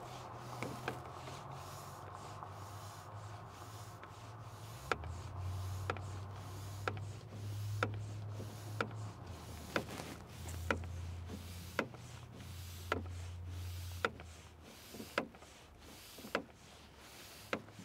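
Small air pump feeding a homemade smoke machine during an intake vacuum-leak smoke test, running with a steady low hum. Sharp clicks come about once a second through the second half.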